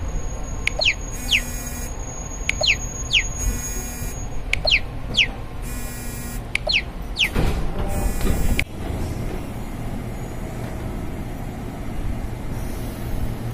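Electronic chime inside a KRL electric commuter train car, repeating about every two seconds as short buzzy tones and pairs of quick falling chirps. About seven seconds in comes a loud rush of noise that stops sharply as the doors open, and then the train rumbles steadily at the platform.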